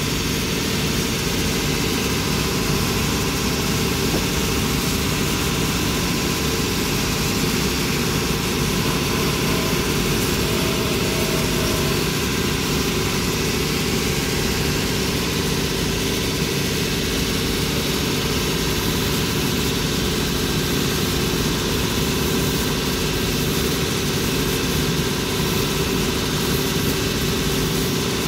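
Cobbler's finishing machine running steadily, its spinning abrasive cone scouring the edge of a leather patch held against it.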